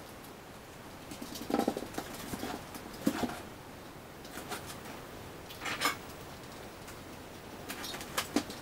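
A stiff electric-assist bicycle tyre being worked onto its rim by hand: short rubbery squeaks and light taps of rubber against the metal rim, coming in a few brief clusters a second or more apart.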